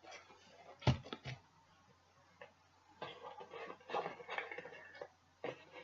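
Handling of a plastic puzzle cube: a few light clicks about a second in, then a denser run of small clicks and rustling from about three to five seconds, and one more click near the end.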